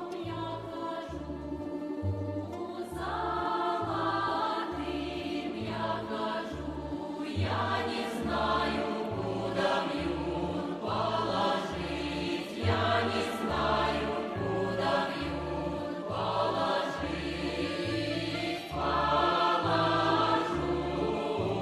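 Background music: voices singing in phrases, choir-like, over a steady pulsing bass beat.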